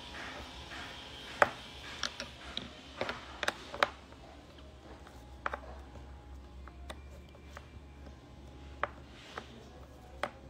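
Sporadic light clicks and knocks from parts being handled during assembly of a chair, bunched about three to four seconds in, over a low steady hum.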